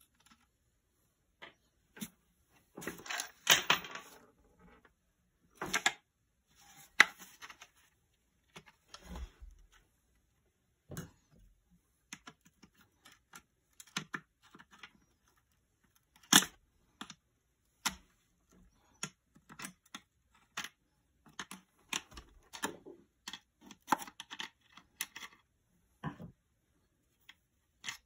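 A screwdriver and metal terminal hardware working on the plastic case of a solid-state electric fence controller: scattered clicks, taps and scrapes, with a longer run of scraping about three seconds in.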